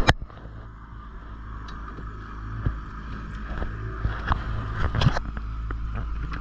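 Boat's outboard motor running at a steady low trolling speed, with water and wind noise along the hull. A sharp knock comes right at the start, and a few fainter knocks follow about two and a half to five seconds in.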